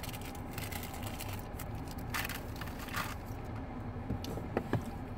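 Steady low hum inside a car cabin, with two brief rustles about two and three seconds in and a couple of short clicks near the end.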